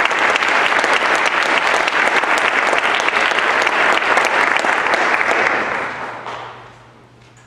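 Audience applause that dies away about six to seven seconds in.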